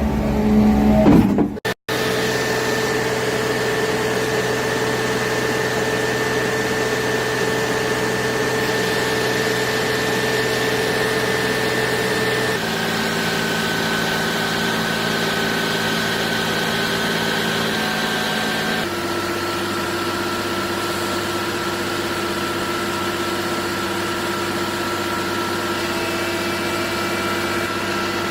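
Diesel engine of a truck-mounted concrete pump running at a steady speed, its pitch dropping abruptly about twelve seconds in and again about six seconds later.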